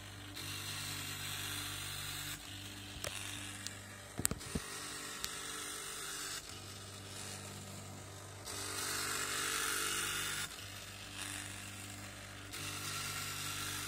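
Small salvaged stepper motors, a CD drive's laser-sled stepper and a floppy-drive stepper, buzzing as they step the CNC axes, both driven through a single H-bridge from a Raspberry Pi. The buzz comes in stretches of about two seconds, its pitch and loudness changing from one stretch to the next, with a few sharp clicks about four seconds in.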